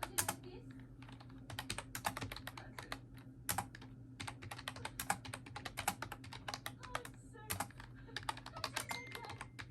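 Typing on a Bluetooth backlit computer keyboard: quick, irregular key clicks, several a second, with short pauses between runs.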